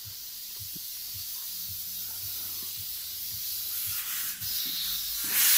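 Steady high-pitched hiss that slowly grows louder, with a faint low murmur underneath. About five seconds in it swells suddenly into a louder rushing hiss.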